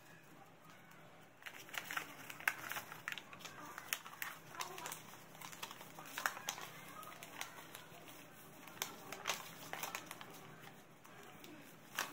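Stiff craft paper being folded into accordion pleats and creased by hand: irregular crinkles and crackles of the paper, starting about a second and a half in.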